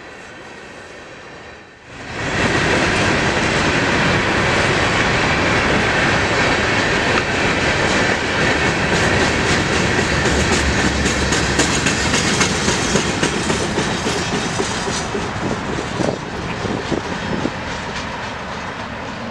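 Freight train cars rolling past close by: a steady rushing rumble with wheels clacking over the rail joints. It jumps suddenly louder about two seconds in and eases slightly near the end.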